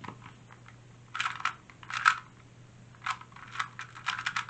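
Plastic 2x2 speed cube being turned fast, its layers clicking and clacking in quick flurries with short pauses between them.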